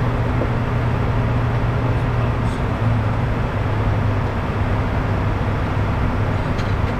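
Steady in-flight noise inside a Bombardier Challenger 350 business jet: the rush of air and the hum of its twin Honeywell HTF7350 turbofan engines, with a constant low drone underneath.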